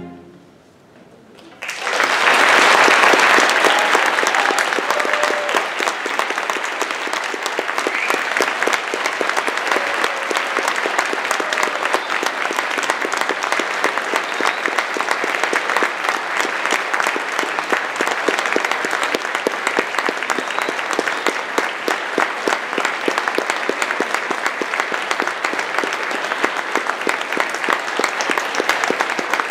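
The last ring of a string orchestra's final chord fades out, and after a short hush an audience starts applauding about two seconds in, clapping steadily on.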